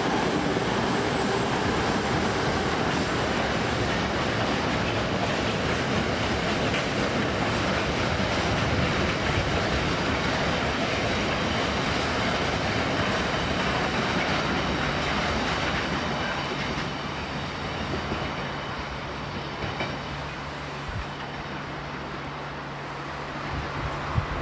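A train passing along the rails, a loud steady rush of wheel and rail noise that eases off after about 16 seconds as it moves away. A steady low hum remains after that.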